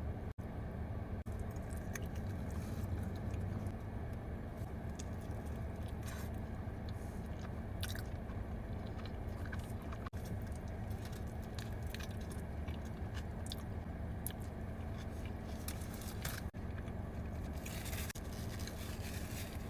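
A person chewing and biting into a burrito close to the microphone, with many short wet mouth clicks, over a steady low hum. The sound drops out briefly three times.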